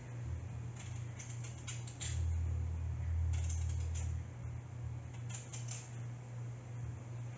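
A knife shaving the skin off a sweet potato: short, irregular scrapes, a few a second, over a steady low hum that grows louder from about two to four seconds in.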